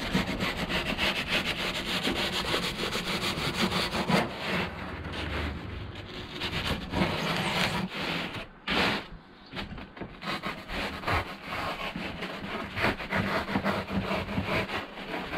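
Plasterboard knife sawing through a sheet of closed-cell polyurethane foam, a rapid run of rasping strokes. It stops briefly a little past the middle, then the strokes start again.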